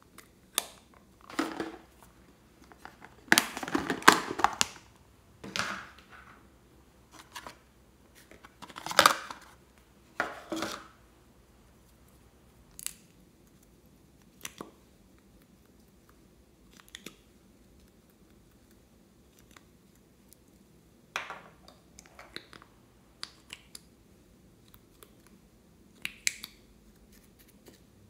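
Small plastic toy makeup containers being handled close up: clicks, scraping and rustling as a compact is pried open and a little bottle's cap is unscrewed, in scattered bursts with quiet gaps between, busiest in the first ten seconds.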